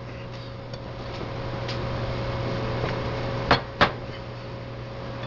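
Hands pressing a chicken breast into a breadcrumb and Parmesan coating on a ceramic plate: soft rubbing of the crumbs and two sharp knocks about a third of a second apart a little past halfway, over a steady low hum.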